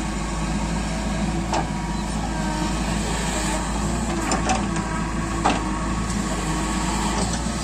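Diesel engine of a JCB 3DX backhoe loader running steadily as it digs and swings a bucket of soil, with a few sharp knocks.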